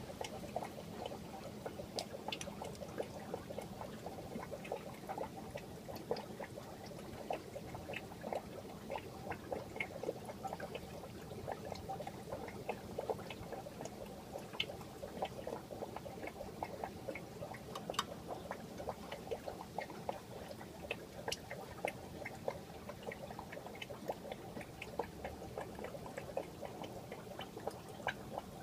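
Aquarium water trickling and bubbling steadily, with many small pops and drips throughout.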